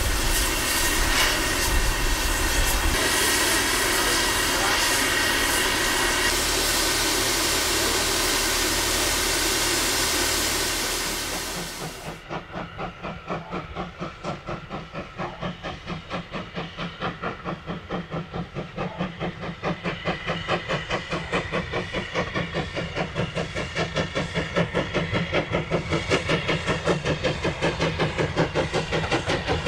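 LSWR T9 4-4-0 steam locomotive: a loud, steady hiss of escaping steam, then, about twelve seconds in, the locomotive's exhaust beats at about four a second as it works a train, growing louder as it nears.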